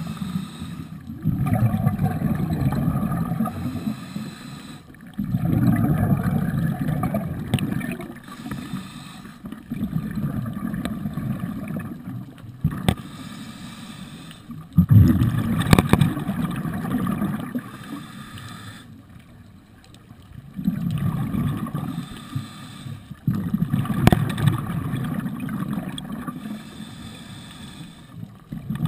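Scuba diver breathing through a regulator, heard underwater: exhaled bubbles rumble and gurgle in bursts every four to five seconds, with quieter stretches between them. A few sharp clicks fall between the breaths.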